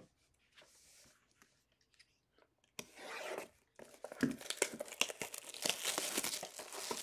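A Panini NBA Hoops trading card box being torn open: a short rip about three seconds in, then a run of crackling, crinkling tearing of its packaging.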